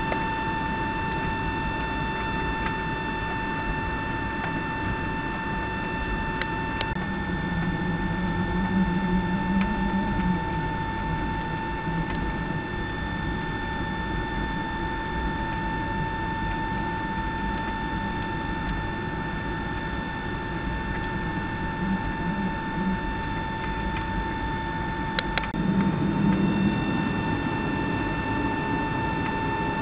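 Cabin noise of a Boeing 757-200 taxiing: a steady low rumble with a high, even whine from the jet engines at taxi power. The rumble swells briefly about seven seconds in and again near the end.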